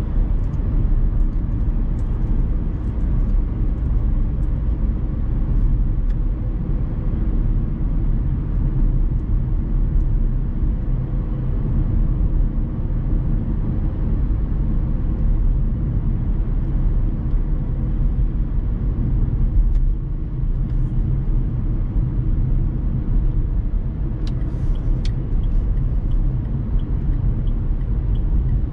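Inside the cabin of a Dacia Sandero Stepway on the move: the 1.5 dCi four-cylinder diesel running steadily under a low, even rumble of tyres on the road.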